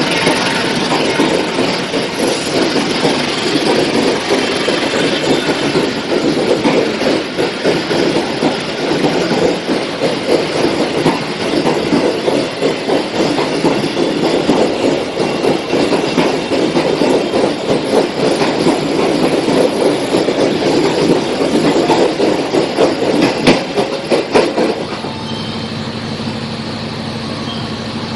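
Passenger train coaches rolling past close by, wheels clattering over the rails in a fast rhythm. About 25 seconds in the sound cuts to a quieter steady hum.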